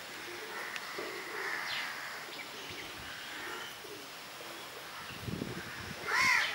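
Birds calling in a garden: a dove cooing low over and over among small birds' chirps. About six seconds in, a crow starts cawing loudly.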